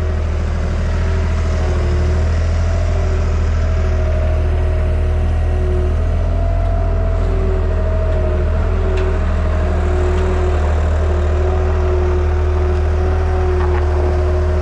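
A vehicle engine runs steadily under a constant low drone, with a steady whine on top and no change in speed.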